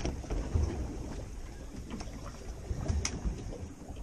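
Steady low rumble of a fishing boat at sea, with wind on the microphone, and a single sharp knock about three seconds in.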